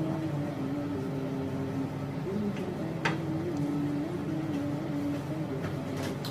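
Kitchen clatter: two sharp clinks of kitchenware, one about three seconds in and one near the end, over a steady low hum whose pitch shifts in steps.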